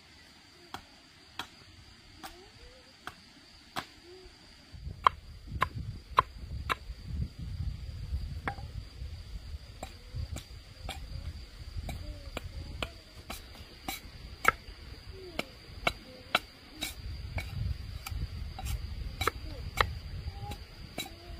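A run of sharp, irregular knocks, about one or two a second and more frequent after about five seconds, over a steady high insect drone, with low rumbling from about five seconds in.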